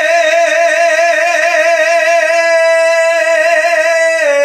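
A kavishar's voice holding one long sung note with a wide vibrato. The pitch drops near the end as the next phrase begins.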